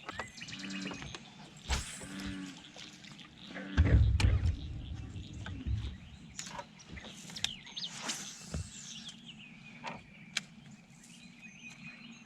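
Birds chirping in short high calls, with scattered small clicks and knocks, and a brief low rumble about four seconds in.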